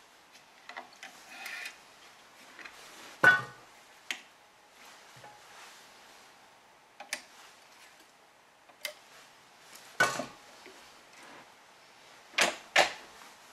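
Hand work on a badminton racket stringing machine with fixed clamps: string rustling about a second in, then a scattering of sharp clicks and knocks as the clamps and turntable are handled, with a close pair near the end.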